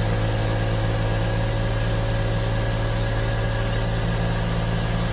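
1992 Daihatsu Hijet Climber mini-truck's small three-cylinder engine idling steadily, heard from inside the cab.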